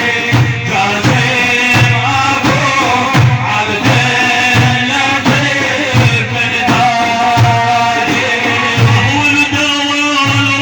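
Middle Eastern music from an Iraqi madih (religious praise song): a wavering melodic lead over a steady low beat, about three beats every two seconds.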